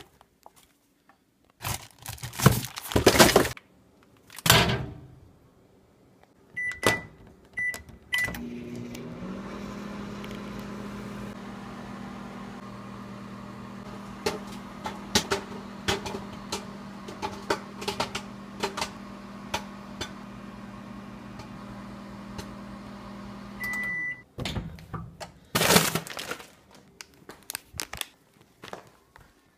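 Microwave oven cooking a bag of microwave popcorn: a few keypad beeps, then the oven runs with a steady hum for about fifteen seconds while kernels pop in sharp clicks, thickening midway, before it stops with a longer beep. Loud handling noise follows as the bag is taken out.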